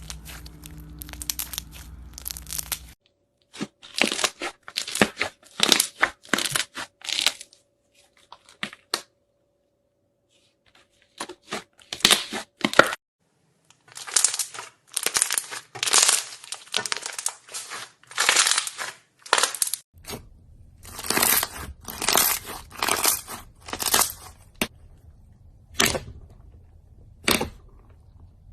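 Brittle material crushed by hand in repeated short crackling, crunching strokes, one squeeze after another, broken by brief pauses. Near the end the strokes thin out to single crunches a second or two apart.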